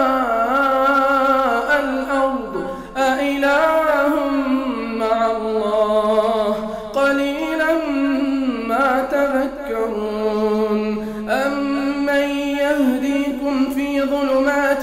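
A man reciting the Quran in melodic tajweed style, from Surat an-Naml, singing long held, ornamented notes. His voice dips briefly for a breath about three seconds in.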